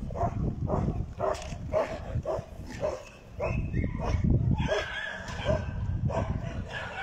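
Dog barking repeatedly, about two barks a second, with a longer drawn-out call a little past halfway.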